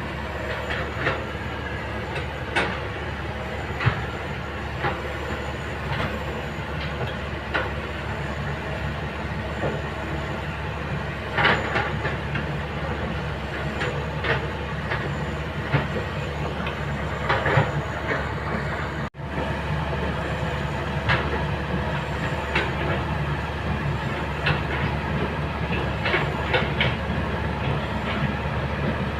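Kobelco excavator's diesel engine running steadily, with frequent sharp metallic clanks and knocks from the working machine. The sound drops out for an instant about two-thirds of the way through.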